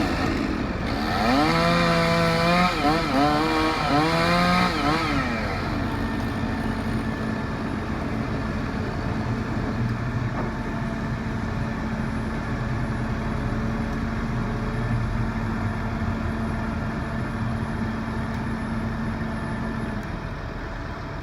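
Chainsaw engine revving up and down several times over the first five seconds, then a steady engine drone that cuts off about twenty seconds in.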